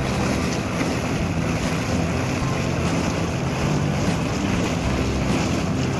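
Small boat underway on calm water: a steady motor hum with water rushing past and wind buffeting the microphone.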